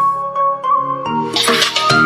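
Electronic background music: the kick-drum beat drops out into held synth notes with a rising noise swell before the beat returns.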